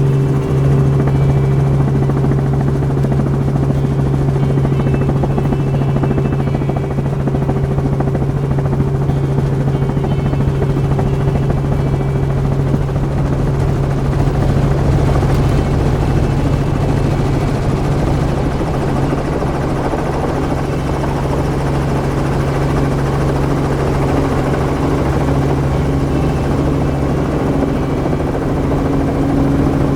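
Steady low drone of a vehicle's engine heard from inside the cabin, a constant hum that holds level throughout.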